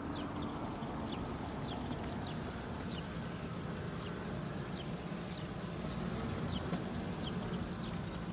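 Cartoon outdoor sound effects: short bird chirps about once a second over a low, steady truck-engine rumble.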